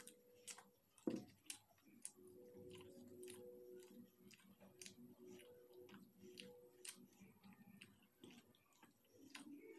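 Close-miked chewing of roti and egg bhurji: a run of short wet mouth clicks and smacks, with a louder click about a second in. A faint low steady tone hums behind it for a few seconds in the middle.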